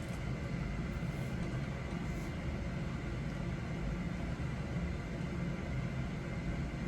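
Steady background hum and hiss of room noise, with no distinct handling sounds.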